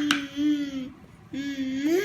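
A voice making two drawn-out "aah" sounds, the second rising in pitch at its end, with a sharp click right at the start.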